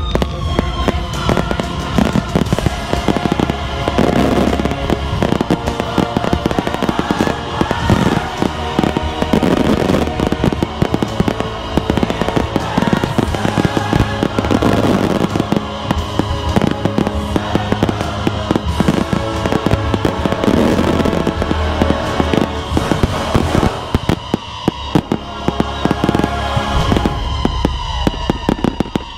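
Fireworks display firing non-stop: a rapid, dense stream of shell bursts and reports with crackle, over the music the show is fired to.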